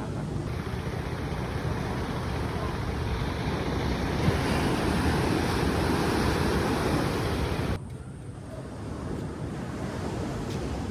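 Sea waves washing in, with wind buffeting the microphone. The sound swells louder about four seconds in, then drops suddenly to a quieter wash near eight seconds.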